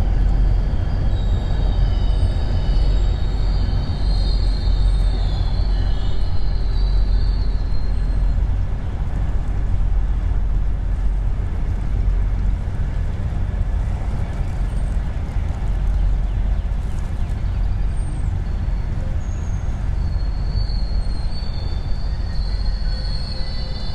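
GO commuter train rolling over a railway trestle bridge: a heavy, continuous rumble of wheels on rails that eases slowly as it passes. High squealing tones ride on top for the first several seconds and again near the end.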